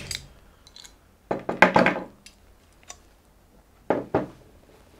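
Metal bicycle tools (a chain whip and cassette lock-ring tool) clinking and knocking against a cassette and a tabletop. There is a cluster of clinks about one and a half seconds in, a few light ticks, and two knocks around four seconds in as a tool is set down on the table.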